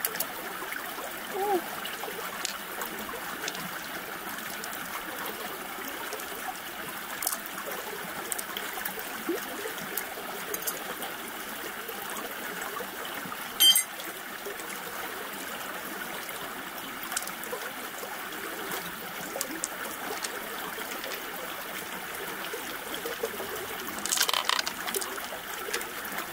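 Steady trickle of running water from a shallow stream, with scattered small clicks and taps as pearls and mussel shells are handled: one sharp click about halfway through and a quick cluster of them near the end.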